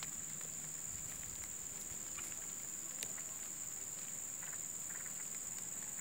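Steady high-pitched insect drone with a few faint ticks and clicks scattered through it; one sharper click about halfway through.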